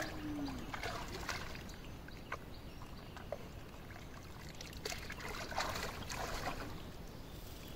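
Faint trickling and sloshing of water and wet mud being worked by hand in a muddy hole, with scattered small clicks and squelches, a little busier about five to six seconds in.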